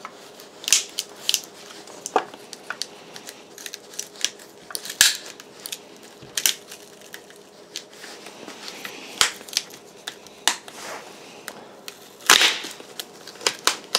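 Flat screwdriver prying a glued-in BMS circuit board off a lithium battery pack: irregular sharp clicks and cracks as the glue lets go, with a louder cluster near the end.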